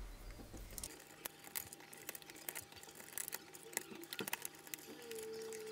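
Small plastic and metal clicks and taps as 30-pin SIMM RAM modules are unclipped and pulled out of the sockets on a Macintosh SE/30 logic board, many quick clicks spread through. A faint steady tone comes in near the end.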